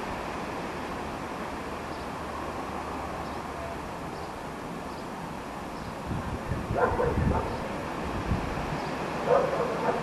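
A dog barking in short bouts, once about seven seconds in and again near the end, over a steady background hiss.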